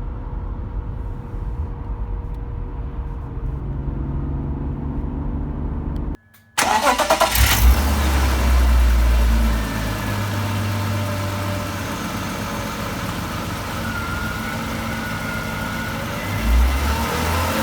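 BMW E36 running, with car rumble and a faint steady whine. The sound drops out briefly about six seconds in, then comes back louder. The owner blames the howling on a cheap aftermarket driveshaft centre bearing.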